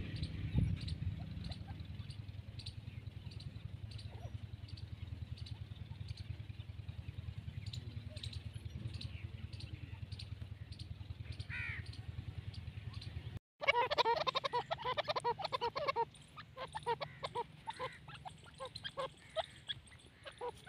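Grey francolins calling. After a cut about two-thirds through, they give a burst of loud, rapid, harsh chattering notes, which thin into softer repeated calls. Before that there is only a faint steady low hum with regular faint ticks and one brief gliding call.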